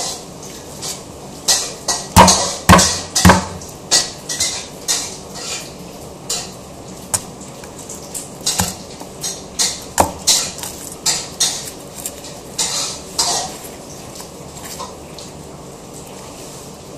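Sharp, irregular knocks and clicks of a cleaver and long fingernails against a thick wooden chopping board as garlic cloves are broken off the bulb and peeled, with the loudest run of knocks about two to three seconds in.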